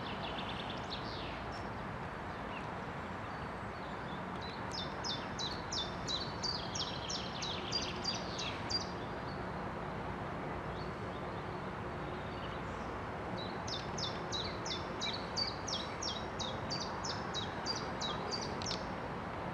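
A songbird singing two long phrases of rapid, repeated high notes, about three a second, over a steady low rumble from the passing inland container freighter's diesel engine.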